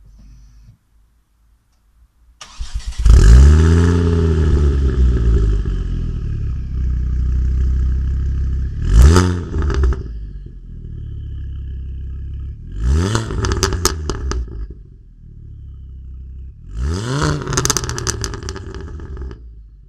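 Ford Focus ST Mk2's turbocharged 2.5-litre five-cylinder, resonator and catalytic converter removed, starting warm about two and a half seconds in, flaring and settling to idle. It is then blipped three times, and the last two revs are followed by a rapid run of exhaust crackles and pops.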